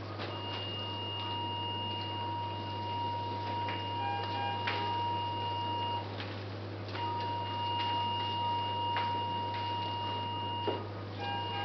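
Operating-room electronic equipment sounding a steady high tone, which breaks off for about a second near the middle and again shortly before the end, with two short lower beeps about four seconds in and another near the end. Scattered light clicks and a constant low hum run underneath.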